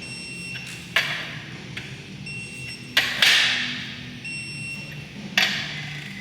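Torque wrench clicking off three times, about two seconds apart, as each Cummins 6BT main cap bolt reaches its 66 ft-lb pre-stretch torque, each click followed by a brief metallic ring.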